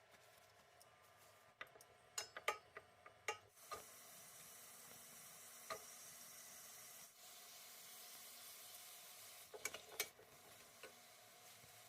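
Food sizzling faintly in a pan, with a utensil clinking and scraping against it a few times, in a cluster early on and again near ten seconds in.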